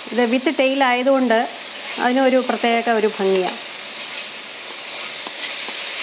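Prawns frying in oil in an iron wok, a steady sizzle with a metal ladle stirring them against the pan. A pitched, voice-like sound runs over roughly the first half, then only the sizzle and stirring remain.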